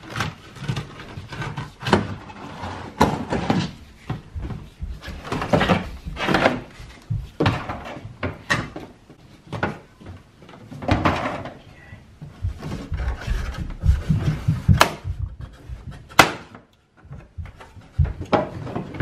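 Plastic trim and the rubber trunk-opening weatherstrip of a Tesla Model S being pried and pulled off by hand: irregular scraping, rustling and knocking, with two sharp clicks near the end as clips let go.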